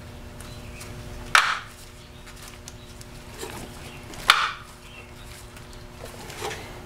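Plastic vent caps of a flooded lead-acid car battery being snapped back into the cell openings: two sharp plastic snaps about three seconds apart, then a fainter click near the end.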